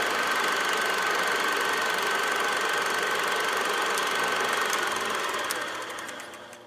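A small machine running steadily with a constant high whine, with a few light clicks late on, then fading out near the end.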